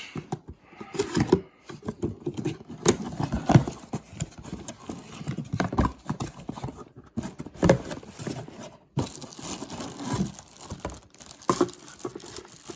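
Packaging being handled and opened by hand: irregular rustling, crinkling and tearing, with scattered light knocks and taps as a boxed car part is unpacked.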